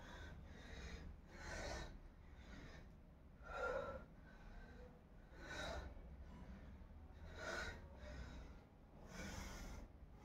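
A person breathing heavily in a steady rhythm, one loud breath about every two seconds, the strongest about four seconds in, over a low steady hum.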